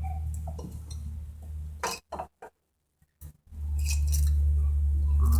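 Light metallic clicks and clinks of engine parts and hand tools being handled, over a steady low hum that cuts out for about a second in the middle and comes back louder near the end.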